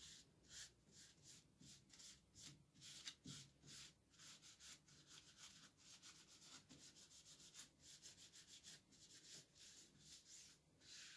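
Faint cloth rubbing over a stainless-steel roaster top in quick, repeated back-and-forth wiping strokes, taking loosened coffee oil and cleaner off the metal.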